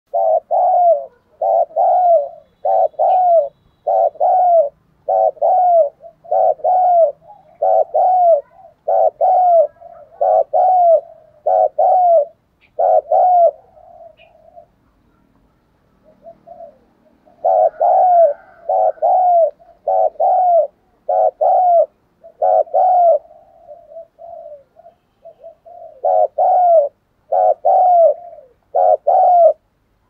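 Spotted dove cooing: a steady run of short coos that fall in pitch, mostly in quick pairs about once a second, with a pause of about three seconds midway and a few softer coos late on.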